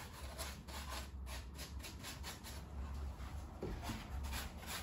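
Flat paintbrush scrubbing thinned acrylic paint onto a filler-coated polystyrene model wall, a run of faint short rubbing strokes, several a second, working the paint into the joints.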